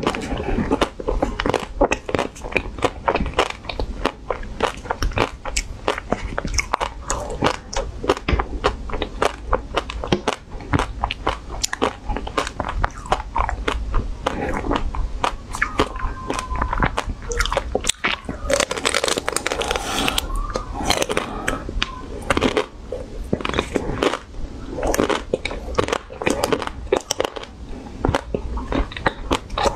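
Close-miked biting and chewing of a frozen ice cream bar: a steady run of crunching bites and chewing.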